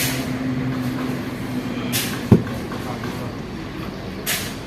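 An engine running steadily, broken by short hisses and one sharp metal clank a little over two seconds in.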